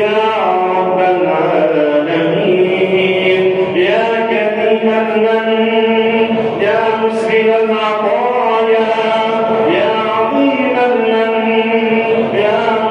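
Drawn-out melodic chanting of an Arabic supplication (dua): long held vocal notes gliding up and down, over a steady lower note that holds throughout.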